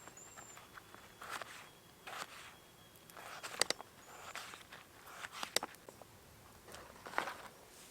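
Irregular footsteps and rustling on the ground, with a few sharp clicks.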